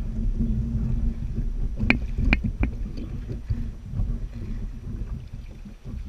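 Wind rumbling on the microphone of a kayak-mounted camera, with three sharp knocks about two seconds in as gear is handled aboard the kayak.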